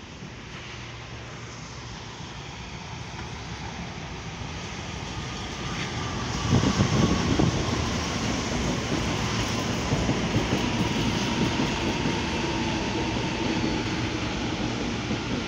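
CPTM electric commuter train approaching and running past close by. It grows steadily louder over the first six seconds, then becomes a heavier rumble of wheels on rail with a faint whine.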